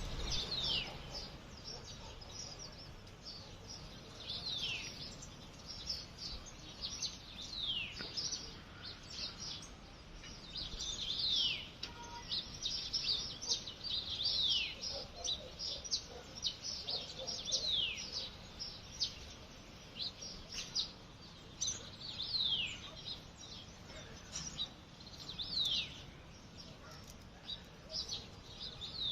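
Birds chirping in a morning chorus. One bird repeats a falling whistled note every three to four seconds over a scatter of shorter high chirps.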